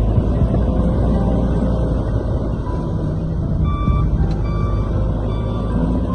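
Heavy snow-clearing machine's engine running steadily under load, with a series of short high beeps over it.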